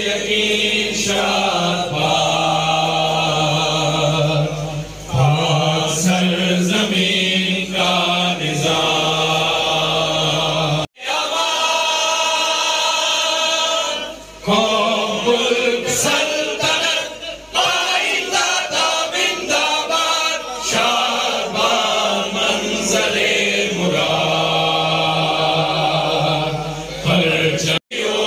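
A group of men singing a patriotic song together in unison, holding long notes. About eleven seconds in the singing breaks off sharply and a few men carry on singing into a handheld microphone.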